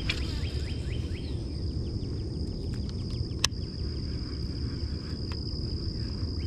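Insects trilling in a steady high-pitched drone, with runs of short falling chirps and a low rumble beneath. A single sharp click about three and a half seconds in.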